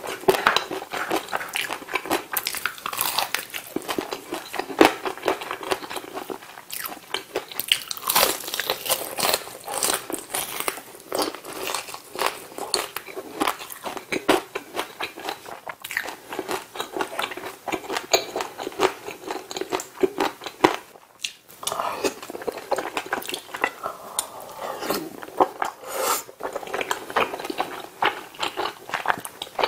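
Close-miked eating: biting into and chewing fried chicken, a dense run of short mouth clicks and crunches, with a brief pause a little past twenty seconds in.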